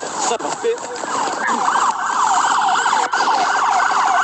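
Police siren in a fast yelp, its pitch sweeping up and down several times a second; it comes in strongly about a second and a half in.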